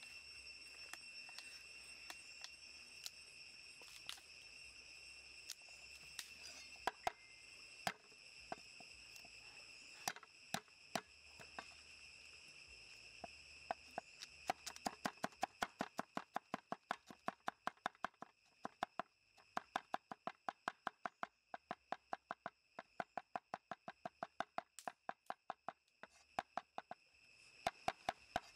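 A broad cleaver chopping on a round wooden chopping board. At first there are scattered strokes. From about halfway it becomes a fast, even run of chops, about four a second. Behind it is a steady high insect chorus.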